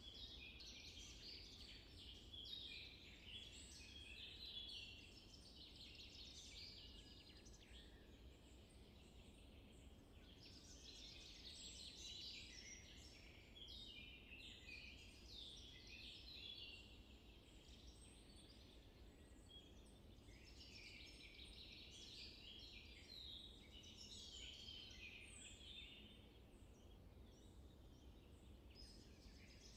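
Faint chorus of small songbirds chirping and singing, swelling and fading in waves every several seconds, over a steady low background hiss.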